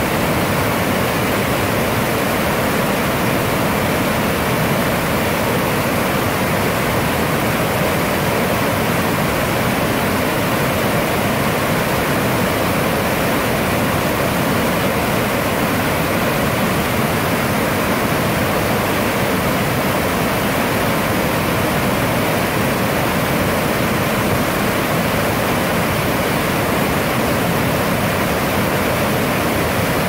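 Waterfall plunging over rock ledges into a pool: a steady, unbroken rush of falling water.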